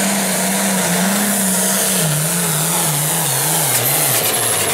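Pulling tractor's diesel engine at full power, hauling a weight-transfer sled. Its pitch holds steady, then wavers and drops in steps over the last couple of seconds as the engine is pulled down.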